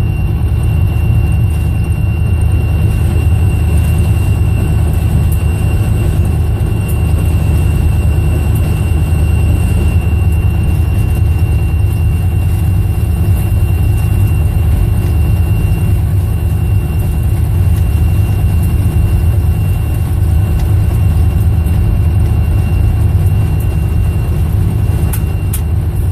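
EMD SD40-2 locomotive's 16-cylinder two-stroke diesel engine running steadily under way, heard from inside the cab as a loud, even low drone along with the rumble of rolling on the rails. A thin, steady high whine sits over it.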